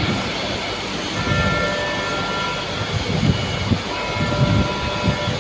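Vibration stress relief exciter, an electric motor with eccentric weights clamped to a heavy steel ring, running steadily and shaking the workpiece during treatment. It makes a steady mechanical rumble with a few thin whining tones over it and irregular low knocks.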